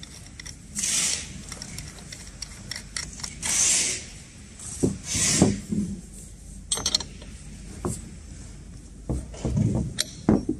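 A bolt on a surge arrester's end fitting being tightened by hand with a combination spanner. Metal scrapes, clinks and knocks of the spanner, bolt and metal bracket come in short bursts: three longer scrapes in the first six seconds, then scattered clicks and knocks.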